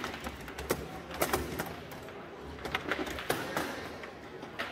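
Foosball played hard on a CR Factory table: sharp knocks and clacks at irregular intervals as the ball is struck by the figures and hit against the table, about seven or eight in all.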